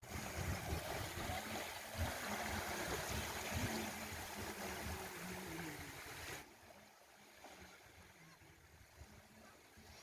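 Wind buffeting the microphone at the seashore, with uneven low gusts over a steady rushing noise; it drops suddenly to a much quieter hiss about six seconds in.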